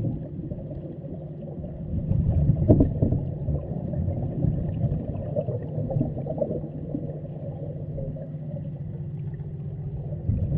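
Underwater ambience: a steady low rumble with several held low tones running through it. It swells louder about two to three seconds in.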